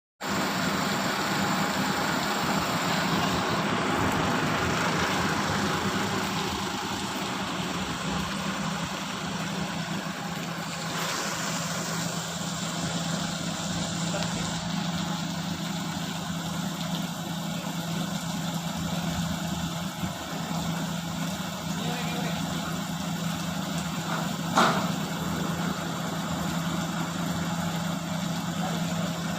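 Heavy machinery's diesel engine running steadily at idle with a constant low hum. About three-quarters of the way through there is one brief, sharp sound.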